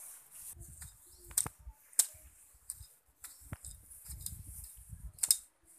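Soft footsteps and rustling on grass and gravel, with four sharp, separate clicks spread through.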